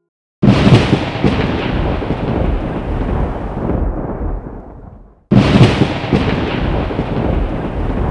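A sudden deep rumbling boom that rolls on and fades over about five seconds, then an identical second boom starts about five seconds in: a thunder-like sound effect played twice.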